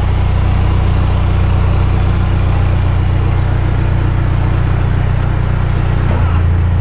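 Narrowboat's diesel engine running steadily at low revs. Its low note shifts and grows louder about six seconds in.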